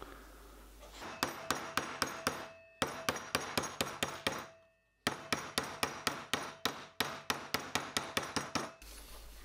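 A mallet beating a freshly annealed copper firebox tube plate flat on its former. The blows come fast, about five a second, in three runs separated by short breaks, starting about a second in, with a faint ring from the metal.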